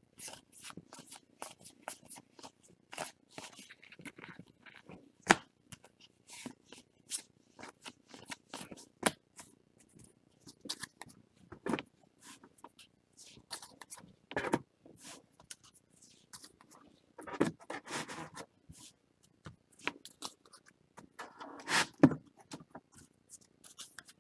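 Topps baseball trading cards being handled and sorted by hand: a quick, irregular run of clicks and scrapes of card stock sliding and tapping, with a couple of longer rough rustles in the last third.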